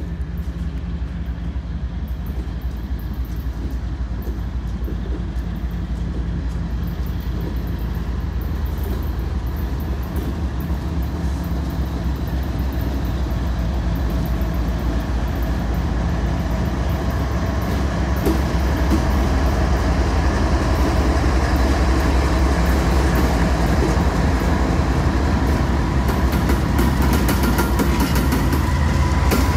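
Diesel locomotive running as a train approaches, its low engine hum growing steadily louder; the rumble and rush of the train moving on the rails fills in over the last third.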